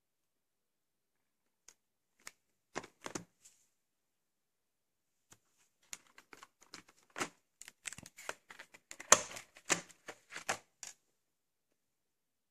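Handling of VHS tapes and their packaging: irregular plastic clicks, taps and crinkling rustles. A few come early, then a denser run follows from about six seconds to eleven seconds in.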